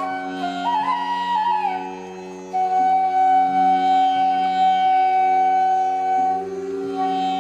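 Slow instrumental music: a flute melody over a steady drone, stepping up and down briefly, then holding one long, louder note from about two and a half seconds in.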